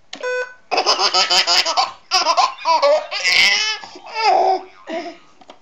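A short electronic beep from a computer, then a baby laughing hysterically in a run of rapid belly-laugh bursts lasting several seconds.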